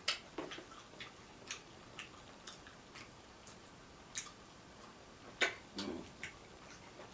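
A series of light, sharp clicks, roughly two a second, with louder clicks near the start and about five and a half seconds in.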